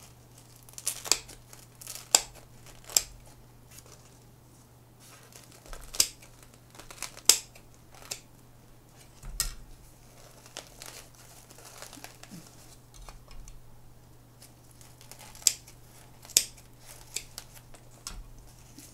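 Dry sphagnum moss and roots of a staghorn fern (Platycerium veitchii) crackling and tearing as a pup is pried off the mother plant by hand, with irregular sharp snaps and rustles.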